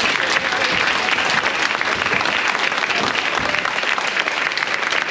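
A large audience applauding: many people clapping steadily and densely.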